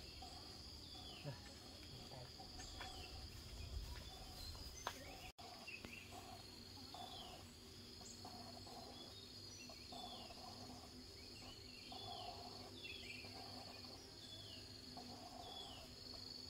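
Faint rural outdoor ambience: a steady high insect drone, with short falling bird chirps repeating about once a second and a lower call repeating alongside them.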